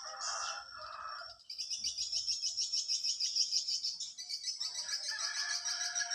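High-pitched chirping trill of small animals, rapid and continuous from about a second and a half in. A steady pitched tone with overtones comes in under it near the end.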